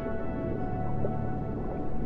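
Slow ambient music of long, steady held tones, over a constant low wash of ocean sound.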